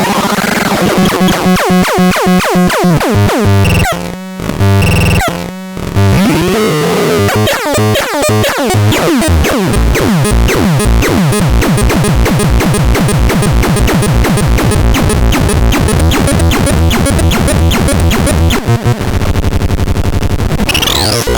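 Electronic synthesized sounds from the ANERDAN C203M, a dense, loud mix of tones that soon turns into rapid falling pitch sweeps repeating one after another, with two short drops in level about four and five and a half seconds in.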